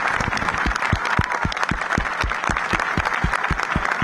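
Crowd applauding after a speech, with steady close handclaps about five a second over the general clapping.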